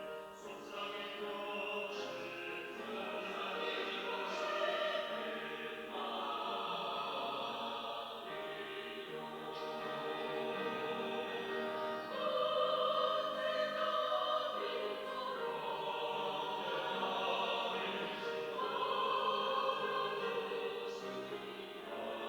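Church choir singing a sacred anthem in held chords, the harmony moving to a new chord every few seconds.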